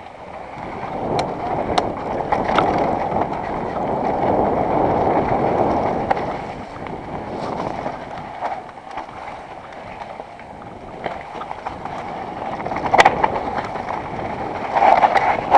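Mountain bike riding down a dry dirt singletrack: tyres rolling and crunching over the dirt with wind rushing on the microphone, and the bike clattering and knocking over bumps, with a couple of louder knocks near the end.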